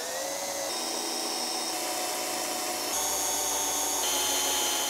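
Cordless drill running a 13/64-inch bit into a block of aluminium, cutting the pilot hole for a 1/4-20 tap. The motor whine holds steady, shifts in pitch a few times as the bit cuts, and dies away at the end.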